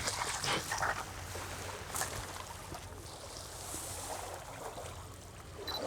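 Faint, steady outdoor rushing noise, with a few light rustles near the start and a single short click about two seconds in.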